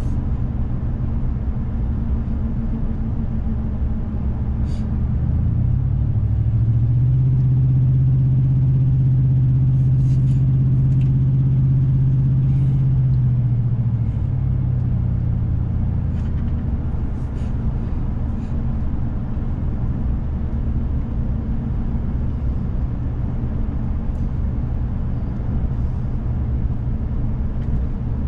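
Car engine and road noise heard from inside the moving vehicle; the engine note rises about five seconds in, holds higher for several seconds as the car pulls, then eases back down.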